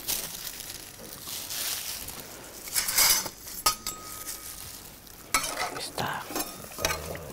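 A spoon stirring a paprika sauce, scraping and clinking against the bowl, over the sizzle of food frying.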